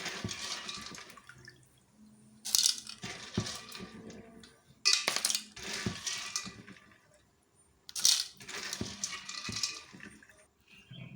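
Washed palm kernel nuts rattling and clattering in a colander as it is shaken in repeated rounds, about every three seconds, to drain off water, with some water splashing.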